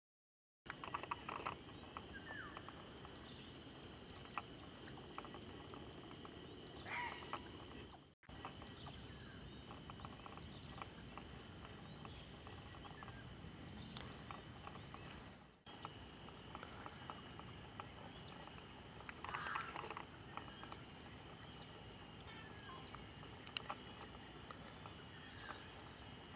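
Faint outdoor ambience: a steady high hum with scattered short, rising chirps over it. It breaks off briefly twice.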